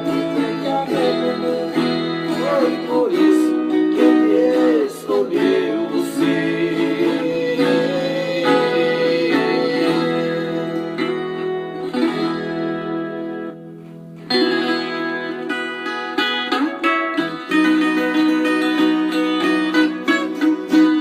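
Viola caipira, the Brazilian ten-string folk guitar, played with plucked notes, with a voice singing over it in places; the music drops off briefly a little past the middle, then resumes.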